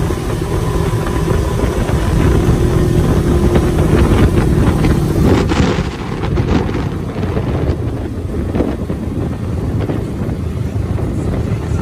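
Open side-by-side UTV (Polaris RZR) on the move: engine and road noise under heavy wind buffeting on the microphone, with a steady hum through the first half.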